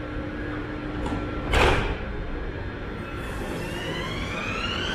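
M1 metro train's sliding doors shutting with a short loud hiss and thud about one and a half seconds in. Then its electric traction motors start up with a whine that climbs steadily in pitch as the train pulls away.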